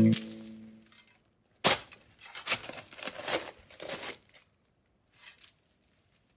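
Music cuts off and rings away, then a single sharp snap and several short bursts of rustling, crinkling noise.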